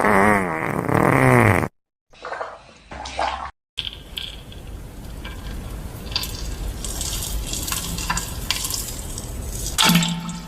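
A fart sound effect: a loud wavering fart that cuts off about a second and a half in. It is followed by a short spluttering sound and then a longer stretch of bathwater sloshing and splashing. A brief low pitched sound comes near the end.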